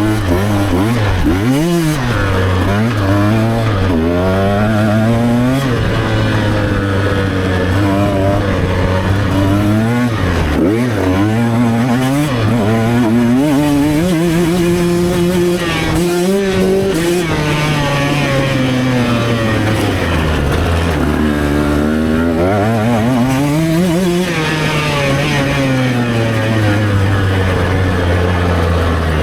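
Enduro motorcycle engine being ridden hard, its pitch climbing and dropping again and again as the throttle opens and the rider shifts gears and slows.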